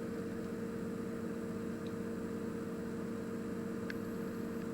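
Steady electrical hum of running bench equipment, two constant low tones over a faint hiss.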